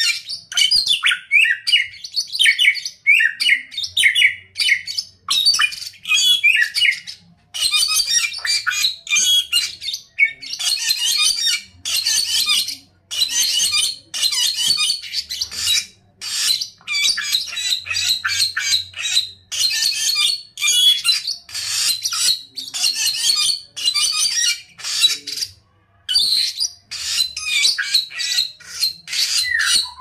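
A caged samyong bulbul in full song: a long run of fast, high-pitched chattering phrases with only brief pauses between them.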